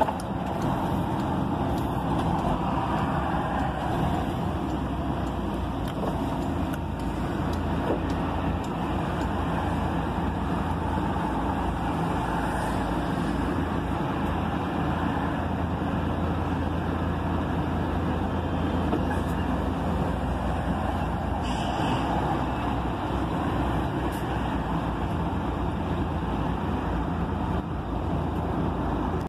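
Heavy truck's diesel engine running steadily, heard from inside the cab as the truck moves slowly or idles.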